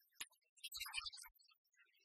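Faint handling sounds: a single sharp click, then soft crackling and light taps as a crisp fried egg roll is picked up off a plate.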